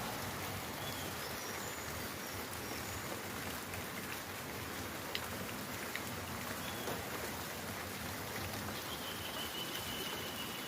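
Steady rain with a few faint, short bird chirps. About nine seconds in, a thin, steady high tone begins and holds.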